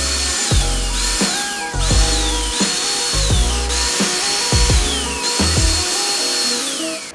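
Power drill driving screws in about six short bursts, its motor whine dropping in pitch each time the trigger is let off. Background music plays throughout.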